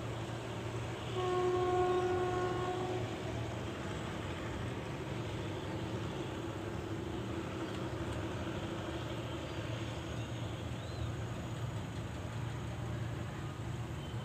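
Diesel locomotive horn sounding one blast of about two seconds, over the steady low running of the locomotive's diesel engine.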